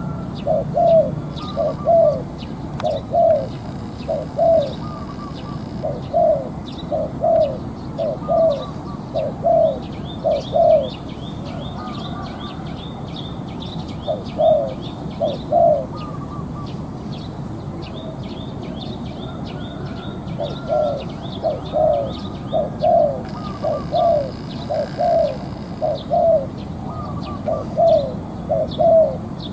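Spotted dove cooing: short low coo notes repeated in runs, falling quiet twice for a few seconds in the middle. Small birds chirp faintly behind it.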